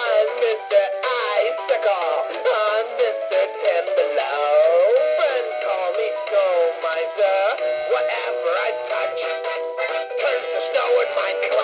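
Mini red snowflake spinning snowman toy playing its Christmas song through its small built-in speaker: a continuous melody with electronic singing and no bass.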